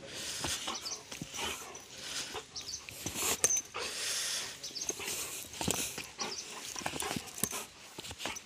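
Chained German Shepherd-type dog snarling in short, irregular bursts, with sharp snaps mixed in: an agitated, provoked dog.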